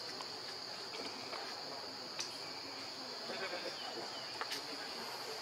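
Steady high-pitched drone of insects, with a couple of faint sharp clicks.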